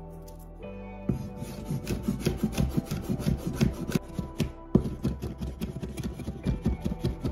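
Chinese cleaver rapidly mincing garlic on a wooden cutting board: a fast, uneven run of sharp knocks, several a second, starting about a second in.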